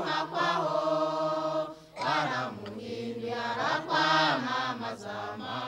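Voices chanting in long held notes over a steady low drone, with a short break about two seconds in.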